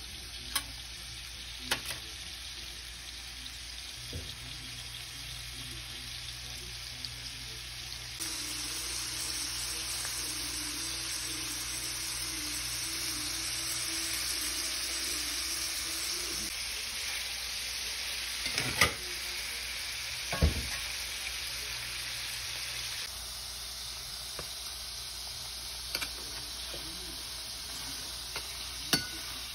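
Tied beef braciole rolls searing in hot oil in a skillet, sizzling steadily, the sizzle growing louder about eight seconds in. A few sharp knocks of a metal slotted spatula against the pan stand out over it.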